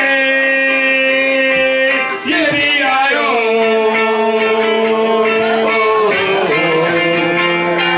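A man singing a wordless melody in long held notes, sliding between them, over a ukulele accompaniment.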